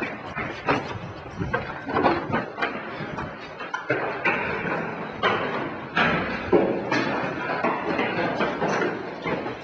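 Scuffling, rustling and irregular thumps of quick movement, with handling noise from a jostled handheld camera.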